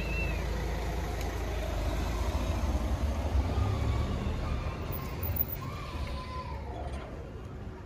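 Low rumble of passing road traffic, swelling to its loudest around the middle and easing off near the end.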